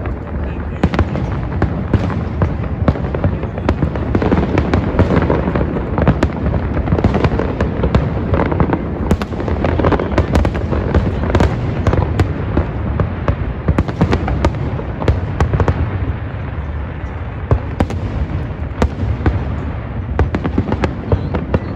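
Large aerial fireworks display: an unbroken barrage of deep booming shell bursts mixed with many sharp cracks and crackles, easing off slightly for a couple of seconds past the middle before picking up again.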